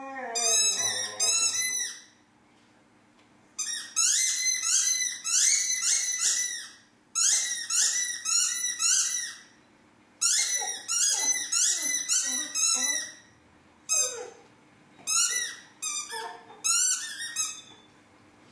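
A dog's squeaky toy squeaking fast and repeatedly as a Labrador cross chomps on it. The high squeaks come in runs of one to three seconds, broken by short pauses.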